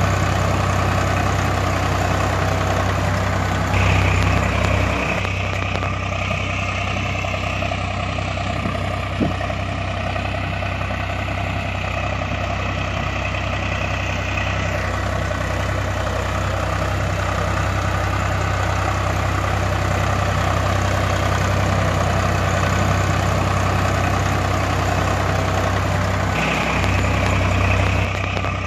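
Tractor engine idling, a recorded sound effect: a steady low hum with an evenly repeating throb. Its sound changes abruptly a few times where recordings are cut together.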